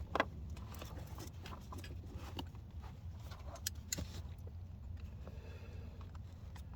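A few scattered sharp clicks of a hand wrench on metal bolts under a car, over a steady low rumble.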